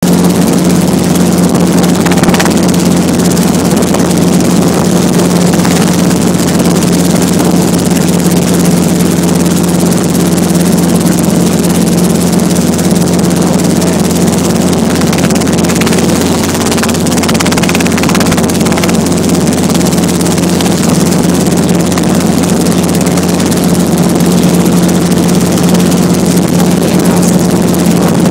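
Helicopter running at a steady speed: a loud, even drone with a constant low hum.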